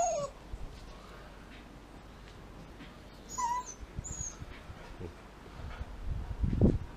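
Saint Bernard puppy whining: a falling whine at the very start and a short high whimper about three and a half seconds in. Low thumps near the end.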